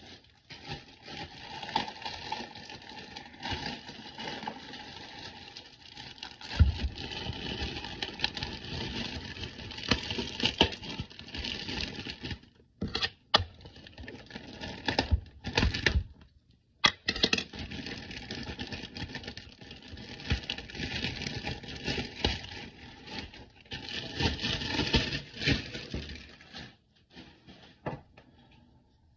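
Clear plastic wrap crinkling and rustling as it is pulled and peeled off a framed picture, with brief pauses partway through.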